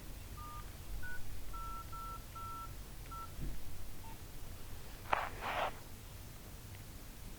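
Nokia 1112 keypad tones: about six short two-tone dialing beeps in quick succession as keys are pressed. About five seconds in there is a brief two-part scraping or rustling noise.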